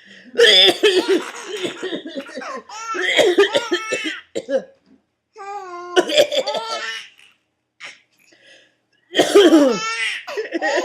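A man coughing in bouts and a baby laughing hard at each one, four rounds with short pauses between them.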